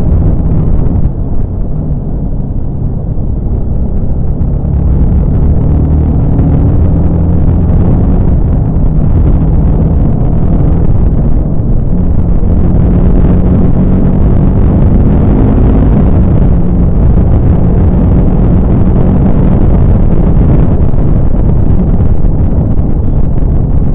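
TVS Apache RR310's single-cylinder engine running at road speed, its note dropping a second or so in as the rider eases off, then climbing again as he picks up speed through the bends. Heavy wind rumble on the microphone throughout.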